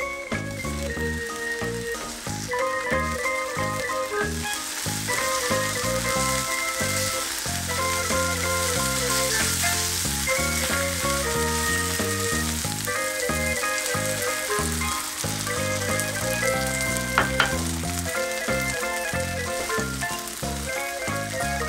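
Cherry tomatoes sizzling in hot oil in a frying pan, then beaten egg sizzling as it is poured in and stirred with a spatula, a steady frying hiss under light background music. One sharp tap about seventeen seconds in.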